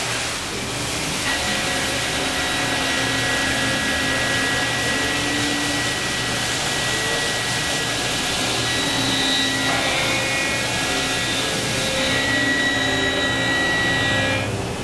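CNC milling machine cutting an AR-15 lower receiver: a steady machining noise with a high whine whose pitches shift a few times as the cut changes.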